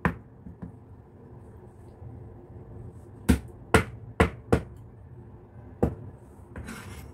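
Cleaver blade chopping through soft egg tofu and knocking on a plastic cutting board: about six sharp knocks, one at the start and a quick run of four about three seconds in.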